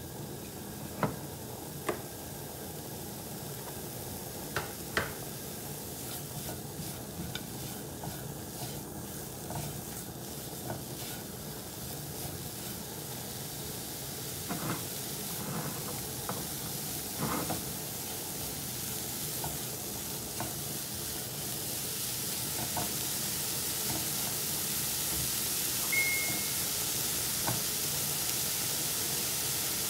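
Grated carrots sizzling in olive oil in a nonstick frying pan while a silicone spatula stirs them, with occasional light taps and scrapes against the pan. The sizzle grows louder and hissier over the second half.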